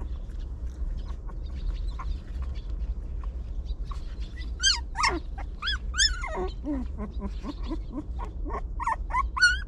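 Several puppies whining and yelping in short, high-pitched squeals. The squeals are sparse at first and come thick and loud from about halfway through, over a steady low hum.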